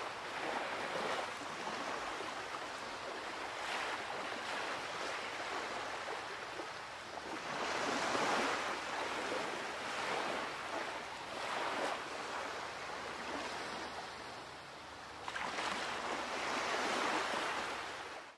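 Sea waves washing onto a beach: a steady rush of surf that swells louder every few seconds as each wave comes in.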